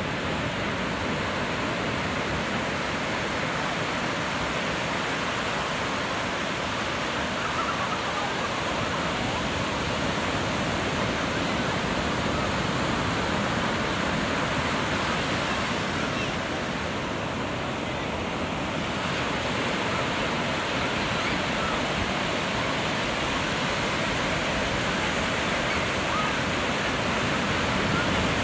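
Ocean surf breaking and washing up the beach: a steady, unbroken rush of waves, dipping slightly for a couple of seconds about two-thirds of the way through.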